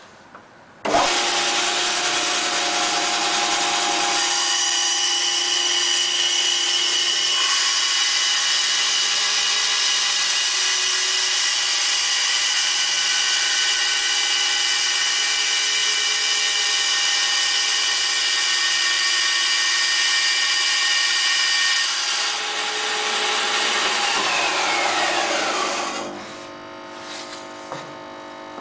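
Bandsaw running and cutting wood: a loud, steady whine and hiss that starts suddenly about a second in. After about twenty seconds the sound eases off and a whine falls in pitch, leaving a quieter hum.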